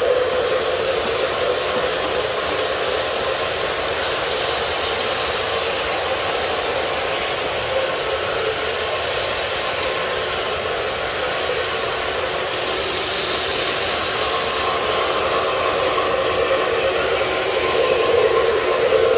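Several O-gauge model passenger trains running at once on three-rail track: a steady running hum and rattle of motors and wheels, a little louder at the start as the gold MTH Millennium train passes close by, and louder again near the end.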